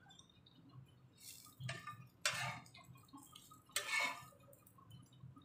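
A glass serving plate being handled, with fried bitter gourd slices shifted on it by hand: about four short clinks and scrapes, the loudest about four seconds in.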